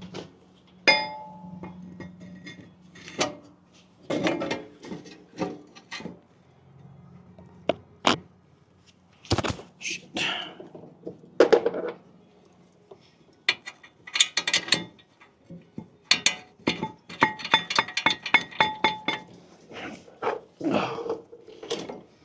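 Metal tools clinking and knocking against the brake parts, with runs of quick even clicks from a ratchet wrench as the brake caliper bolts are run in, the longest run coming about three quarters of the way through.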